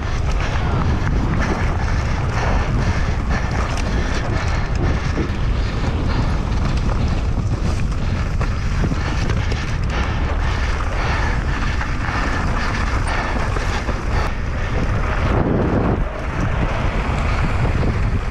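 Heavy wind noise buffeting the microphone of a camera on a mountain bike descending at about 40 km/h, with steady rumble and rattling from the bike running over rough ground.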